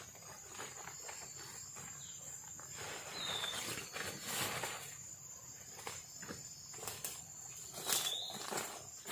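Night insects of the rainforest trilling steadily at a high pitch, with scattered rustling and knocks close by, loudest about four seconds in and near the end, and two short chirps.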